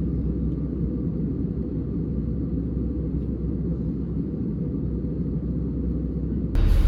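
Steady, muffled low rumble of a vehicle in motion. Near the end it cuts abruptly to a louder, fuller vehicle sound.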